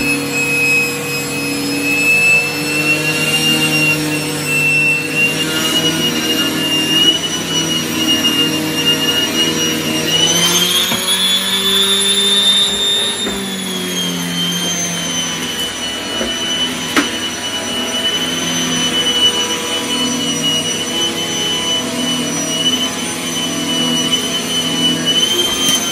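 Henry vacuum cleaner running with a TurboCat EX air-driven turbo head on carpet: a steady whining hum whose low part wavers. Its pitch rises for a few seconds about ten seconds in, then settles back.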